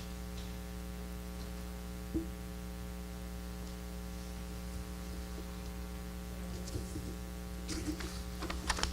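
Steady electrical mains hum, with a few faint clicks and rustles near the end.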